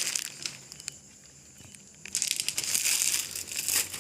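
Rustling, crinkling noise made of many small crackles: briefly at the start, then again for about two seconds from about two seconds in.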